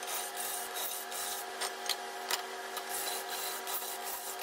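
Handheld drill enlarging the bolt holes of a metal intake manifold flange to the next size, 23/64 in., the bit scraping unevenly in the metal over a steady faint hum.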